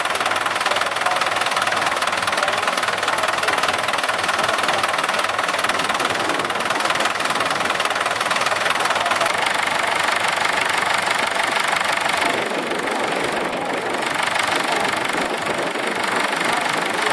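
Vintage tractor diesel engine idling steadily.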